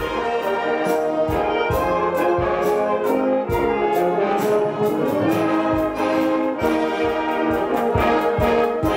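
Youth wind band playing, led by brass (trumpets, trombones, tubas), over a steady drum beat.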